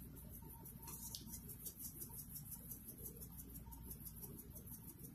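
Faint, quick, even rattling of a plastic spice shaker being shaken, dried Italian seasoning sprinkling onto almond flour in a bowl.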